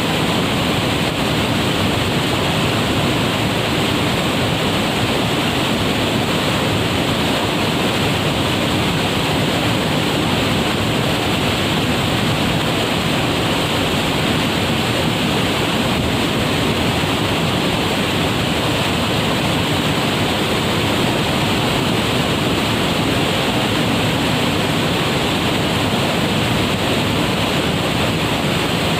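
Waterfall: falling water making a steady, loud rush.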